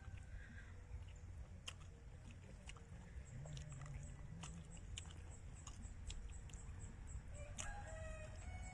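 Someone chewing food with scattered small clicks and smacks, faint under a steady low rumble. A brief pitched call sounds near the end.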